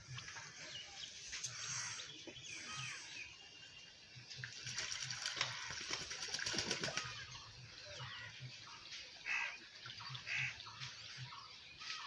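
A duck bathing on a pond, splashing and flapping its wings in the water from about four and a half to seven seconds in, with scattered bird calls.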